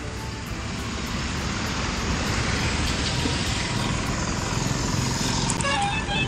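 Steady rush of road traffic and vehicle noise on a busy highway, growing slightly louder after about a second, with a few short pitched tones near the end.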